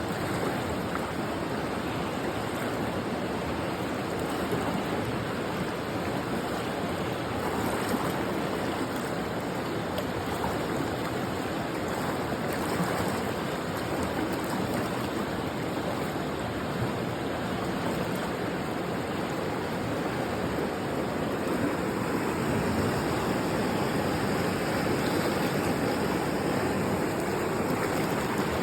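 River water rushing steadily over rocks, a continuous even rush of flowing water.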